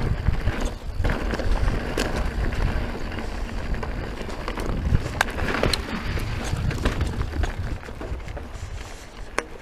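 Mountain bike riding a dirt trail: tyres rolling over dirt and stones with a few sharp clicks and rattles, under steady low rumbling wind noise on the microphone.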